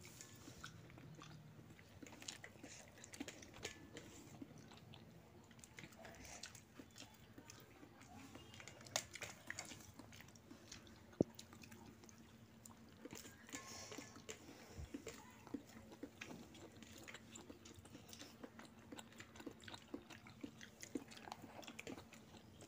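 Faint chewing of rice while eating by hand, with soft clicks and scrapes of fingers on a steel plate and a couple of sharper ticks near the middle.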